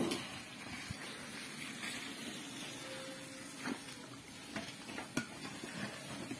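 Large pot of water boiling over an open wood fire: a steady bubbling hiss, with a few sharp clicks scattered through.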